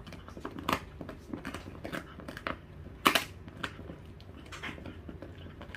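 Dachshund crunching and gnawing a lamb backbone: a run of irregular cracks and crunches of bone between its teeth, the loudest crack about three seconds in.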